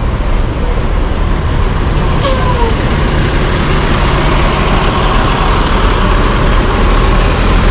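Diesel engine of a Mercedes-Benz intercity coach running close by as the coach pulls away: a steady, loud, deep engine drone with a steady whine above it.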